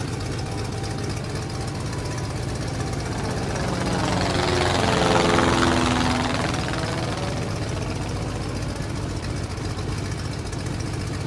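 Small propeller plane engine droning steadily as the plane takes off. It grows louder and dips in pitch as it passes close by about halfway through, then eases back.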